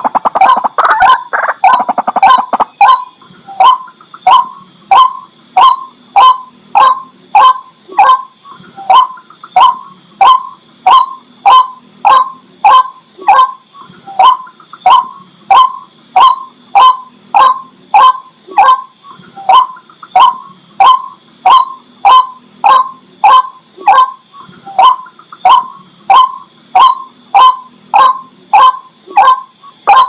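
White-breasted waterhen calling. A quick run of overlapping calls opens, then the bird settles into its monotonous repeated 'kwak' note, about three calls every two seconds.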